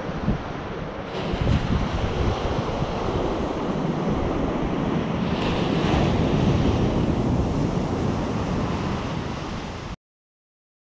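Ocean surf breaking and washing up a sandy beach, with wind buffeting the microphone; the sound cuts off suddenly near the end.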